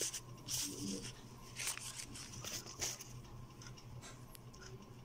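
Faint rustling and light clicks of hands handling tissue paper and small vape parts on a table.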